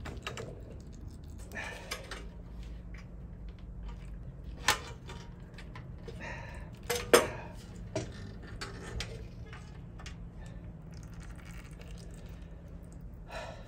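Metal clanks, knocks and scraping as a motorcycle oil tank is wrestled out of the frame, with the loudest knock about seven seconds in. A low steady hum runs underneath.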